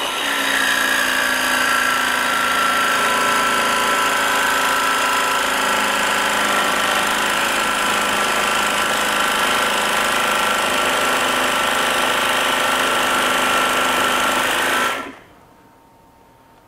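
SKIL PWRCore 12V brushless jigsaw, set to a lower speed, sawing through 1/8-inch metal plate: a loud, steady sawing noise with a high ringing whine that cuts off suddenly near the end.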